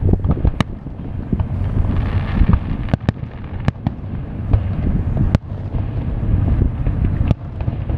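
Aerial firework shells bursting: several sharp bangs spaced a second or two apart, with crackling between them, over a steady low rumble.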